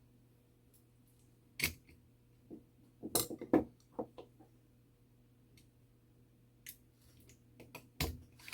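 Small metallic clicks and taps of hand tools and clock-movement parts handled during disassembly, scattered and irregular, with a quick cluster of louder clicks about three seconds in and a few more near the end.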